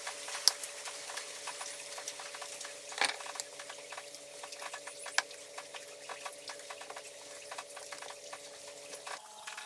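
Small clicks, taps and scrapes of plastic and metal chainsaw parts being handled and worked loose, with three sharper clicks standing out, over a faint steady hum.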